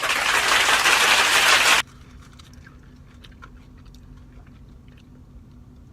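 A loud hissing burst of noise for about the first two seconds, then cuts off; after it, quiet crunching and chewing of nacho chips close to the microphone.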